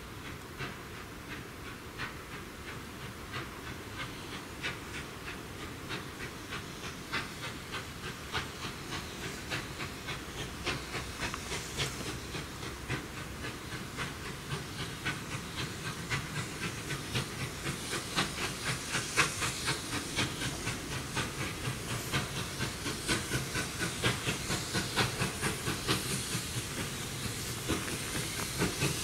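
Steam locomotive working, a quick even rhythm of exhaust beats over a hiss of steam, growing steadily louder as it approaches.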